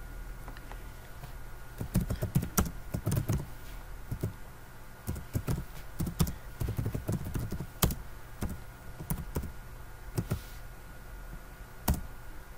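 Typing on a computer keyboard: irregular runs of key clicks as a terminal command is entered, then a single key press near the end, the Enter key that runs the command.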